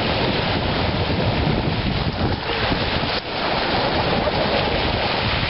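Small waves breaking and washing up a shingle beach, heavily buffeted by wind on the microphone.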